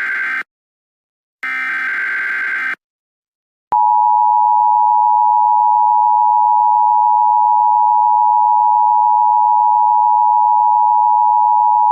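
Emergency Alert System tones. A SAME header data burst ends just after the start, and another follows from about a second and a half in. About four seconds in, the loud, steady two-tone EAS attention signal begins and holds.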